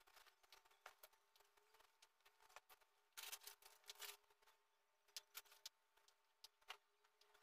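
Faint rustling and light clicks of clothes being handled and stacked, loudest about three to four seconds in, over near-silent room tone with a faint steady hum.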